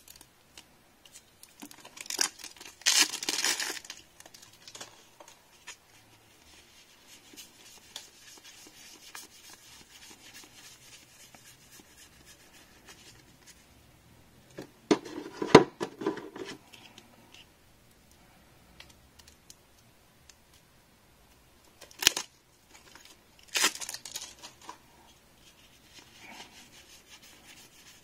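Plastic shrink-wrap torn off a sealed deck of game cards: loud tearing about two to four seconds in, then crinkling of the wrapper, with a louder burst of rustling about halfway through and a few more sharp crinkles and clicks of cards being handled later on.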